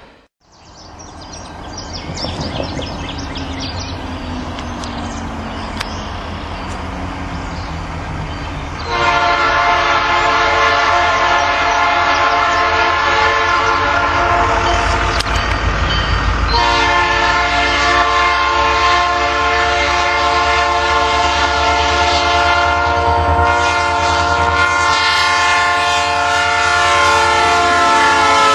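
An EMD SD40-2 diesel locomotive approaching a grade crossing, blowing its multi-note air horn. A long blast starts about nine seconds in, there is a brief break, then a second long blast, over the rising rumble of the locomotive and train.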